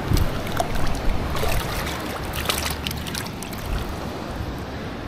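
A pompano being dunked and rinsed in a bucket of water: short splashes and sloshing, mostly in the middle of the clip, over steady surf and wind on the microphone.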